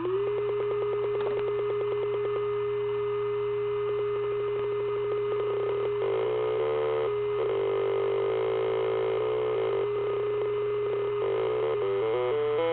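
Homebuilt Auduino granular synth sounding a steady, buzzy electronic tone. The pitch holds while the tone's texture is changed by turning its knobs: fast regular clicking at first, then extra tones above and below coming and going, and quick jumps in pitch near the end.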